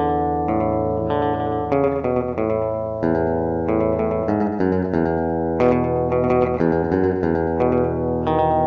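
Music: a song carried by plucked guitar and bass, its chords changing every second or so.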